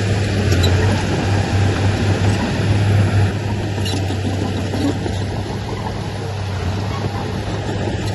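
Diesel engine of heavy earthmoving equipment running steadily under load, a constant low drone with dense mechanical noise over it.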